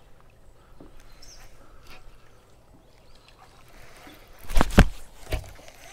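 Low outdoor background, then three sharp knocks close to the microphone near the end: two loud ones in quick succession and a softer one just after.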